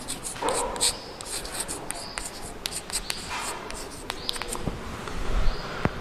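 Chalk writing on a blackboard: scratchy strokes with sharp tapping clicks and a few short high squeaks.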